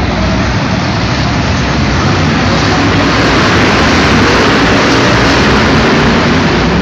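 Several BriSCA F1 stock cars' V8 engines running hard as they race round an indoor arena, a loud, steady, dense engine noise inside a large hall.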